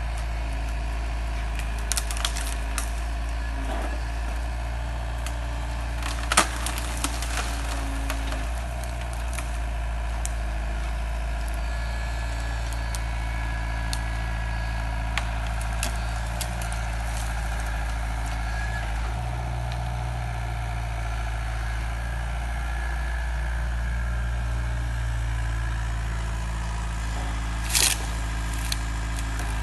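Tracked excavator's diesel engine running steadily while its felling grab holds and lowers a conifer. Sharp cracks of wood and branches come through at intervals, the loudest about six seconds in, with a burst near the end as the tree comes down.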